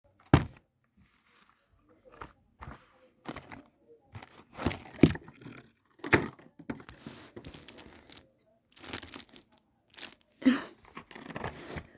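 A toy's box and packaging being handled and opened: irregular knocks and short crinkling, tearing rustles, with a few sharper thuds.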